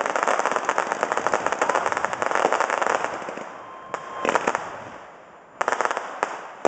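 Aerial fireworks display: a dense run of rapid crackling and popping from bursting shells that fades out after about three seconds, then fresh sharp bursts, the loudest about five and a half seconds in.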